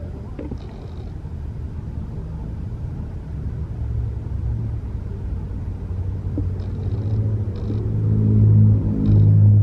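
Low, dull rumble of wind buffeting a muffled microphone, growing louder over the last few seconds.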